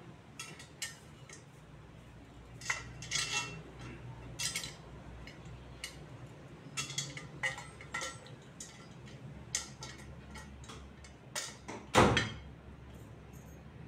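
Metal square-tube frame parts of a flat-pack shoe bench clinking and knocking against each other as they are handled and fitted together, with scattered light clinks and one louder knock near the end.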